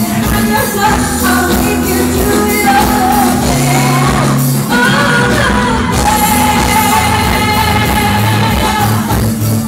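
Loud pop music with a singing voice over held bass notes.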